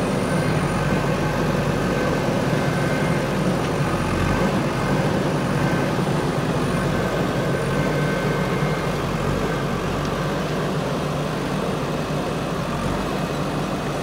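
JCB backhoe loader's diesel engine running steadily, with a thin high tone over it.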